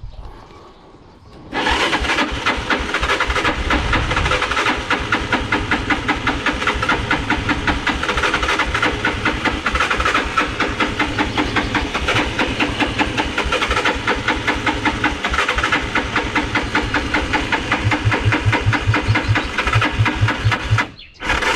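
A motorcycle engine, after more than a year in storage, is cranked on its electric starter with the clutch pulled in but does not fire. The cranking is one long, even, rapid pulse that starts about a second and a half in and stops just before the end.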